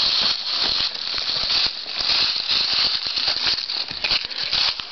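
Dry fallen leaves rustling and crunching in quick, irregular crackles over a steady hiss.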